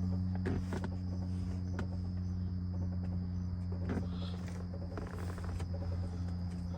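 Steady electrical hum and buzz coming through the Infiniti G37's speakers, with a few light clicks, a noise the owner blames on badly done wiring.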